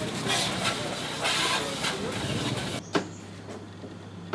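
A water jet from a hose spraying down muddy motorcycles, hissing in surges over a faint low hum. About three seconds in the spray cuts off suddenly, leaving a quieter low hum and a sharp click.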